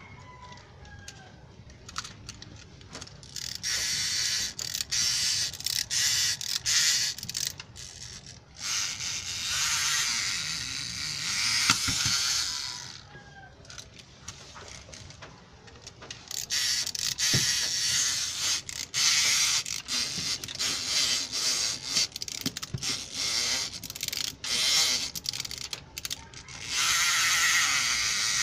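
Small plastic toy gear mechanism ratcheting and whirring in repeated stretches of one to several seconds, with sharp clicks in between, as the Max figure toy is worked by hand on the mat.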